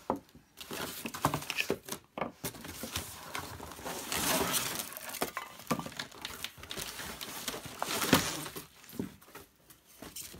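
Packaging and plastic vacuum-cleaner tools being handled: rustling wrapping with scattered light clicks and knocks, a longer stretch of rustling about halfway through.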